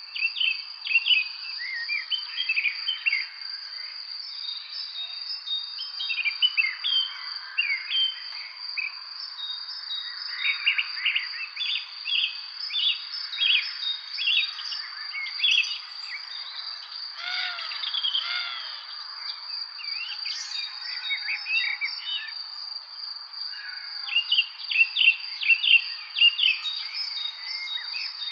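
Many songbirds chirping and singing in short, overlapping phrases over a steady high-pitched insect trill. The chirping thins for a few seconds early on, then grows busy again near the end.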